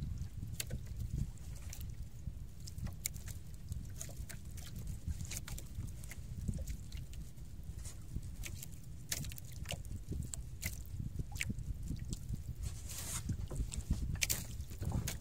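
Wind rumbling on the microphone and sea water lapping against a small outrigger boat, with scattered light ticks and splashes.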